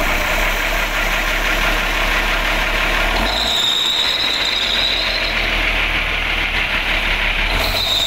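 Bus diesel engine idling steadily in the open engine bay, with a thin high whine that comes in about three seconds in for a couple of seconds and returns near the end.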